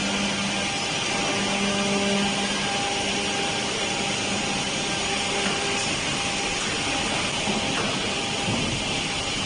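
Woodworking production machinery running steadily: an even hiss with a low hum that fades out about halfway through.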